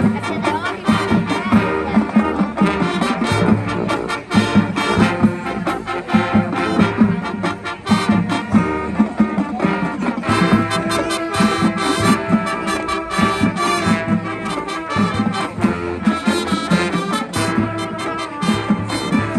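High school marching band playing, the brass section holding the tune over rhythmic drum hits.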